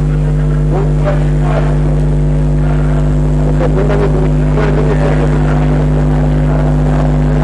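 Loud, steady electrical mains hum made of several fixed low tones, with faint, brief background sounds over it.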